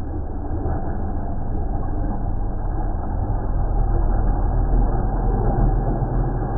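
Electric RC boat with a brushless motor running across the water at speed: a steady low rumble that grows slowly louder as the boat comes closer.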